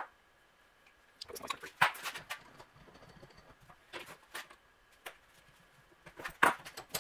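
Scattered clicks and clattering knocks of small metal parts and tools being handled, in a few short clusters with quiet between them.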